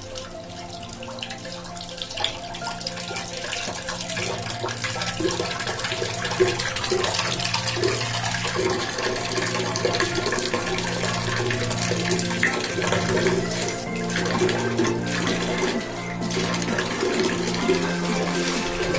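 Water running steadily from a tap or pipe, with background music playing.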